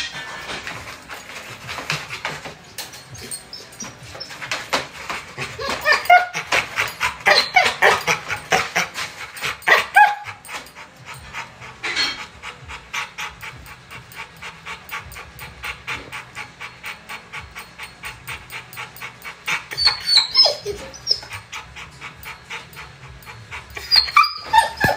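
Pit bull-type dog panting rapidly and steadily, with a few short whines.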